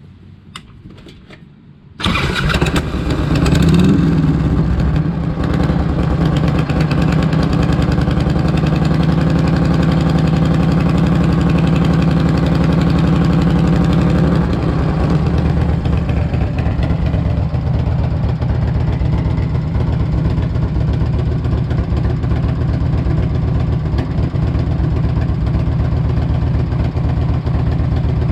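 A 1998 Harley-Davidson Electra Glide Classic's Evolution V-twin starts about two seconds in, runs at a fast idle, then settles to a slightly quieter, even idle about halfway through. It is running on fresh 20W-50 oil to fill the new oil filter, and sounds healthy.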